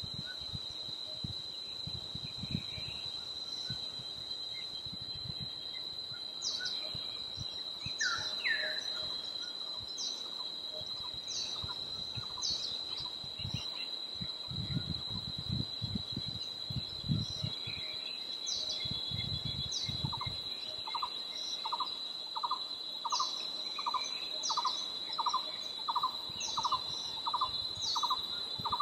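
Forest birds and insects: a steady high-pitched insect drone, with short high chirps about once a second. Over the last third a bird adds a regular series of mid-pitched notes, about two a second.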